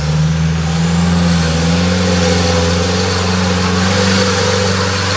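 Off-road 4x4's engine held at steady raised revs, a constant drone, while the winch is run to pull the vehicle through.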